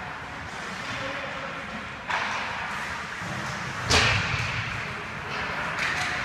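Ice hockey play in a rink: two sharp cracks of stick, puck or bodies against the boards, about two seconds apart, the second louder and echoing, with a few lighter clicks near the end.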